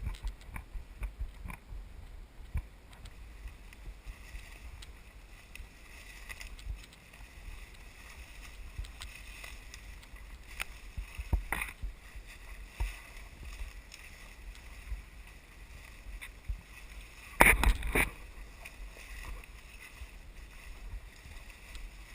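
Footsteps and rustling through leaf litter and undergrowth on a hike through dense forest, with small scattered snaps and brushes and a short burst of loud knocks late on.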